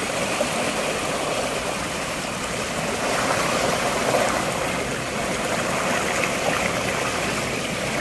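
Fast, swollen floodwater in a small canal, rushing and swirling strongly in a steady noise.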